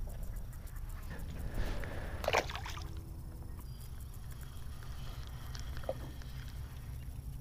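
Low steady rumble of wind on the microphone, with a brief splash of water about two seconds in as a small fish is tossed back into the pond.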